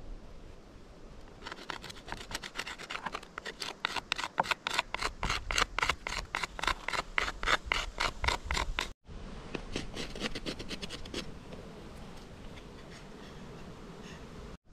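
A wooden stick is ground against a rough abrasive stone in quick, even rasping strokes, several a second, shaping the end of a hand-drill spindle. The strokes break off suddenly about nine seconds in and resume more softly, fading to quiet rubbing.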